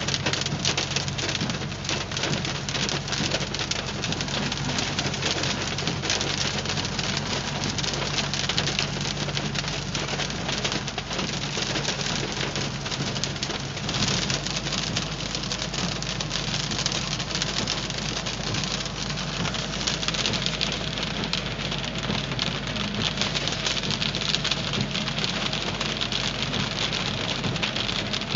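Hailstones hitting a car's body and windshield in a dense, continuous clatter, over the steady low hum of the car driving.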